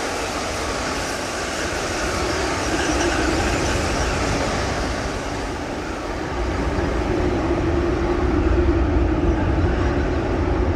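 Steady rumbling noise with a deep low rumble that swells about six seconds in, under a faint held hum.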